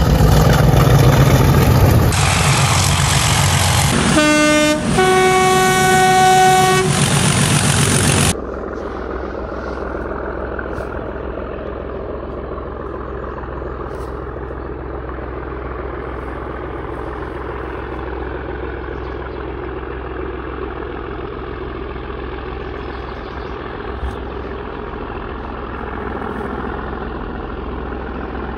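British diesel locomotives working hard under power, with a two-tone horn blast, a low note then a higher one, about four to seven seconds in. The sound cuts off sharply about eight seconds in. A quieter, steady low rumble follows: a distant diesel locomotive approaching.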